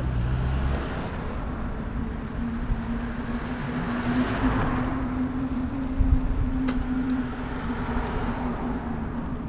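City road traffic: a car passing, swelling and fading about four to five seconds in, over a steady hum and low rumble, with a couple of brief knocks near the middle.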